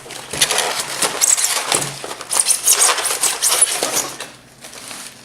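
Plastic packaging crinkling and rustling as the RC boat's pistol-grip remote is unwrapped, a dense crackle of quick clicks that eases off in the last second.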